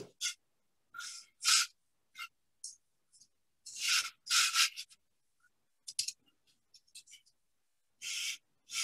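Flour being rubbed by hand through the mesh of a round metal drum sieve: scratchy brushing strokes in uneven bursts, with a few light ticks in a quieter stretch before the strokes resume near the end.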